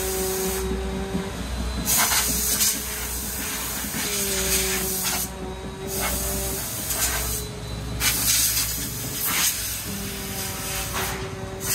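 About five short bursts of spray hissing over a motocross bike being prepped for mud, each lasting up to a second or so, with a steady hum underneath that fades in and out.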